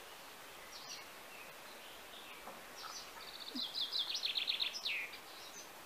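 A songbird singing one phrase about three seconds in: a quick run of about a dozen high notes ending in a falling slur. A single high note comes shortly before it.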